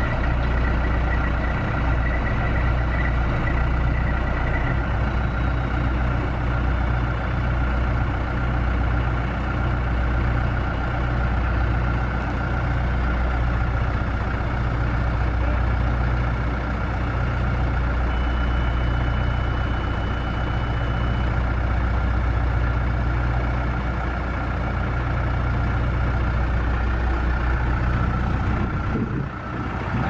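John Deere 310SC backhoe loader's diesel engine running steadily, a deep, even drone with no breaks.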